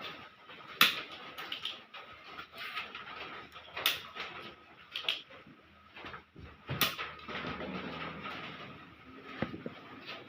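Tools and parts being handled on a workbench: three loud sharp clicks and several smaller knocks, over a faint steady high tone.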